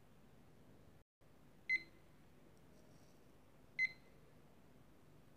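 Digital countdown timer's alarm beeping as it reaches zero: two short, high-pitched beeps about two seconds apart, with a third just starting at the very end.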